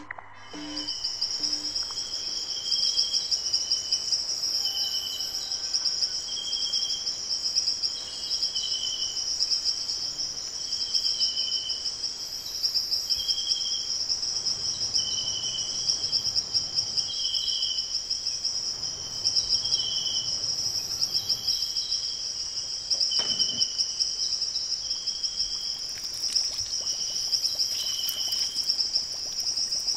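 Crickets trilling steadily and high, with shorter, lower chirps repeating about once a second.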